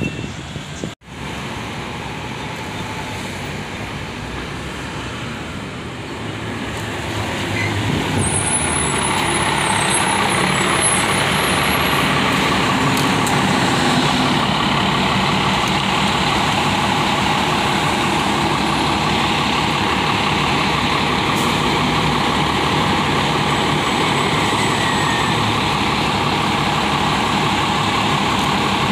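Engine of a heavy road vehicle running, growing louder over a few seconds from about seven seconds in, then holding steady.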